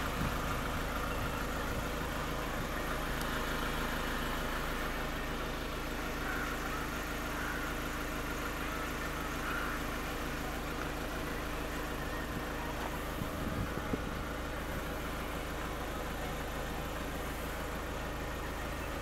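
A vehicle engine idling steadily, an even low hum, with a couple of light knocks about two-thirds of the way in.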